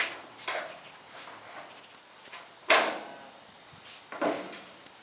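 Crickets chirring steadily in a high, even tone, with four short, sudden knocks or scrapes. The loudest comes a little before the middle.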